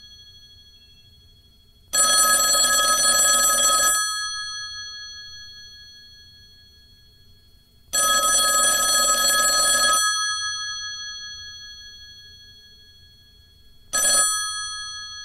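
Telephone ringing: two rings of about two seconds each, six seconds apart, each leaving its tones fading away afterwards, then a short third ring that breaks off near the end.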